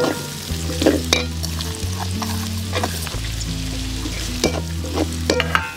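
Sliced onions sizzling as they fry in hot oil in an aluminium kadai. A perforated steel ladle stirs them, clinking and scraping against the pan several times.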